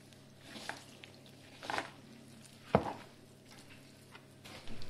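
Hands mixing and kneading wheat-flour dough with fenugreek leaves: faint, scattered squishing and handling sounds, with one sharp knock a little under three seconds in.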